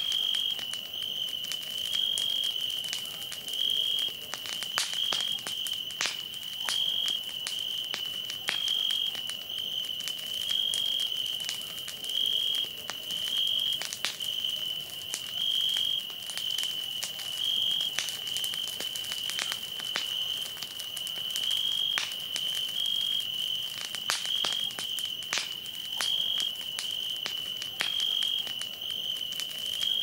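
Bonfire crackling with irregular sharp pops, over crickets' steady high trill that swells every second or two.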